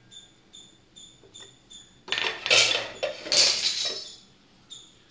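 A spoon scraping and clattering in a stainless steel pot of rice as fried cashews and raisins are spread on top, in two spells about two seconds in. Behind it a faint high tick repeats about three times a second.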